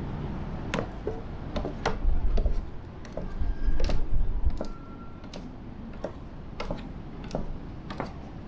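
Scattered sharp clicks and knocks at irregular intervals, with two short bursts of low rumble about two and four seconds in.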